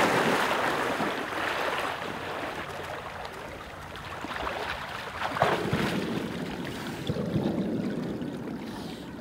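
A dog swimming through flooded timber, splashing and sloshing water, loudest at first and fading as it nears a stand; a louder burst of splashing about five seconds in, and more splashing as the dog climbs out of the water onto the stand.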